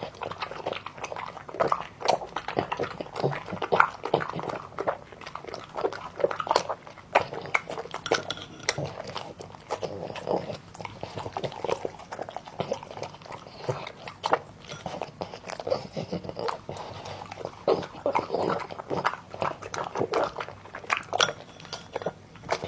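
A dog chewing and crunching food, in quick, irregular crunches.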